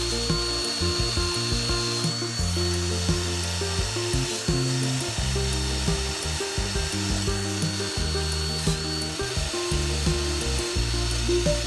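Background music over the steady high whine of a small high-speed rotary power tool, which dips briefly in pitch twice as it bears on the work.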